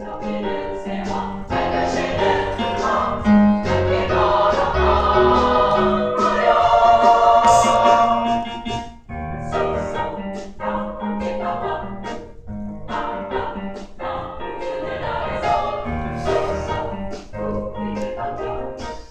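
Women's choir singing, swelling to its loudest in the first half, with a brief break about nine seconds in before the singing carries on more softly.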